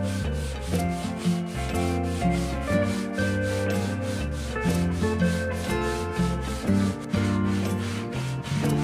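Background music with a steady beat over a wooden hand plane's sole being sanded, rubbed back and forth on sandpaper laid on a flat board to flatten it.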